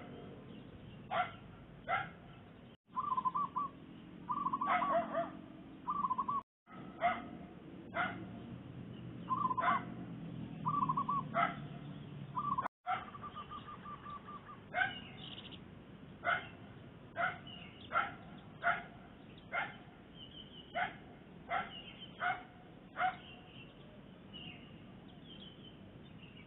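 A dog barking in short repeated barks mixed with zebra doves calling in trilling coos. The sharp notes come about once a second in the second half.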